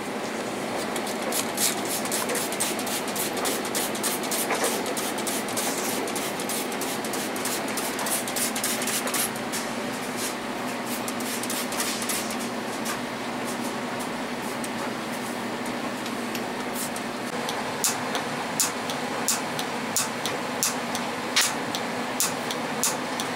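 Repeated sharp clicks from the piezo pilot igniter on a gas water heater's control valve, over a steady hiss. The clicks come thick and fast at first, then louder and more spaced near the end, as the igniter sparks to light the pilot.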